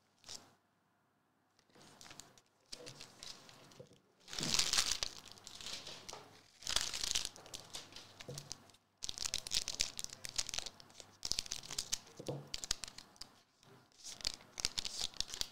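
A foil Magic: The Gathering collector booster pack wrapper being torn open and crinkled, in several crackling bursts.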